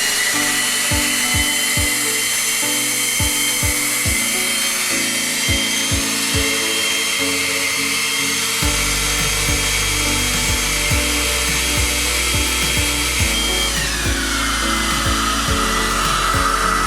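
Hair dryer-styler running: a steady rush of air with a high motor whine. After about thirteen seconds the whine drops lower as the speed is turned down, then climbs back up near the end. Background music with a steady beat plays underneath.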